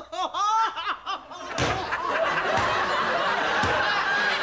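A woman's short wailing cry, then a studio audience bursts into laughter about a second and a half in and keeps laughing.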